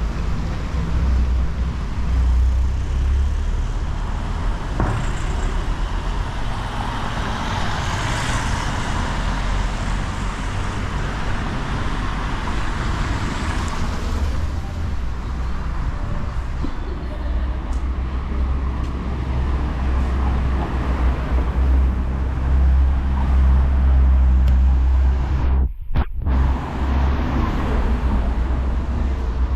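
Street traffic: cars and buses running and passing close by over a steady low engine rumble, with a passing vehicle loudest about eight seconds in. The sound cuts out for a moment near the end.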